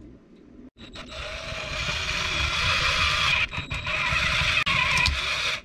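Electric drill running and boring into a small wooden lure body, enlarging a hole with the next size of bit. It starts about a second in, dips briefly twice as the bit loads, and stops just before the end.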